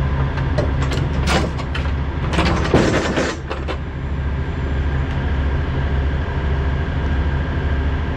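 Trailer's folding aluminium liftgate platform being folded up and stowed: a run of metal clanks and chain rattles for about three seconds, loudest near the middle, over a steady low mechanical hum.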